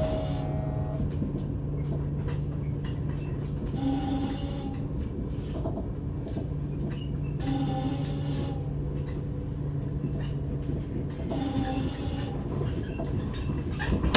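NS ICNG electric train running, with a steady low hum over rumbling noise and a short tone that comes back about every four seconds.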